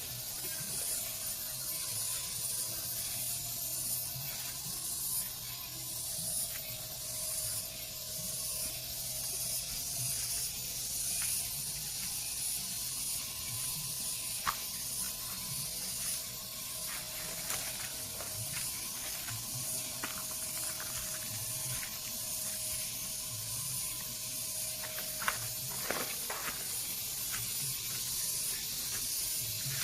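Steady trickling and gurgling of shallow water in a flooded rice paddy, a constant high hiss with scattered small clicks and light splashes.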